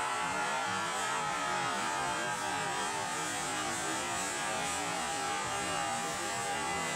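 Ice hockey spectators cheering and shouting together, a steady din.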